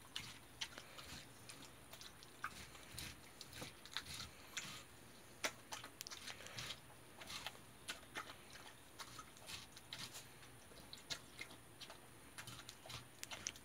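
A Jindo dog eating watermelon slices: irregular wet crunches and clicks as it bites and chews the fruit, the loudest bite a little over five seconds in.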